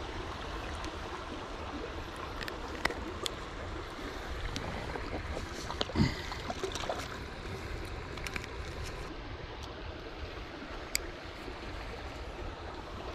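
Steady rush of flowing water with low wind rumble on the microphone, broken by a few sharp clicks and one dull knock about six seconds in.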